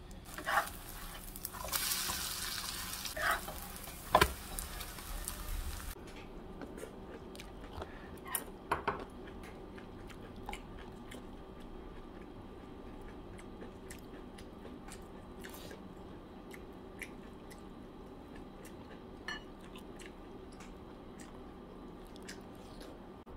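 Kimchi pancake batter sizzling in hot oil in a frying pan while a wooden spoon spreads it, with a few knocks of the spoon. The sizzle cuts off suddenly about six seconds in, leaving a quiet room with occasional light clicks of chopsticks on dishes.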